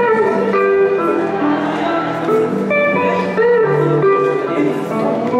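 Live busker music led by guitar, with a melody of held notes that waver slightly in pitch.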